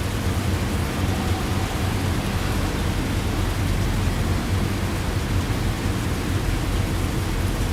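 Heavy rain falling steadily: a dense, even hiss with a deep, constant low band underneath.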